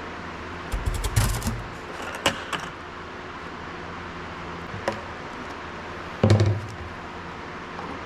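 Knocks and clatter from hand work at a Challenger track wheel hub while its oil is topped off: a cluster of knocks about a second in, single sharp taps near two and five seconds, and a heavier knock with a low thud a little after six seconds, over a steady hum.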